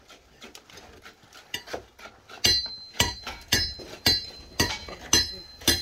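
Metal striking metal on a building site: sharp, ringing clinks, a few light taps at first, then a steady beat of about two a second from a little before halfway.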